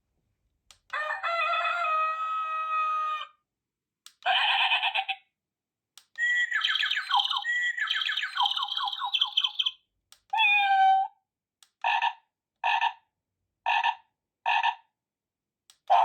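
Avantek wireless doorbell chime playing its built-in ringtones one after another, each a second or a few seconds long with silence between: a held tone, then short phrases that step in pitch, then four short notes a little under a second apart.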